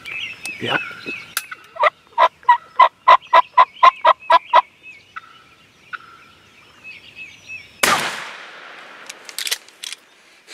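A run of about a dozen evenly spaced turkey yelps, then a single loud shotgun blast about eight seconds in that rings out and fades, followed by a few sharp clicks. Songbirds sing faintly throughout.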